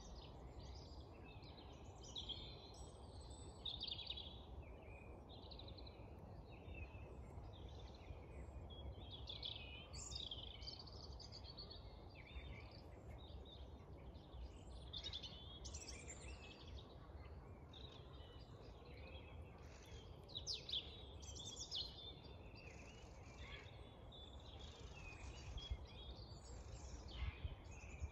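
Dawn chorus: several songbirds singing at once in overlapping phrases, faint, over a low steady background rumble.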